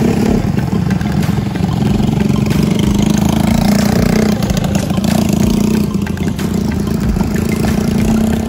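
Motorcycle engine running at a steady idle, with an even, unbroken note.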